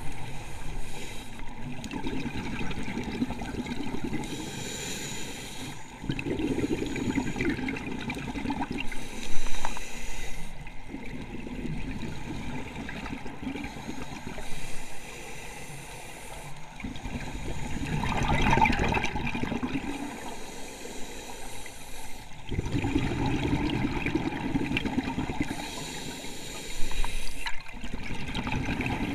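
Scuba diver breathing through a regulator underwater: short hissing inhalations alternate with longer bubbling, gurgling exhalations, over several breath cycles.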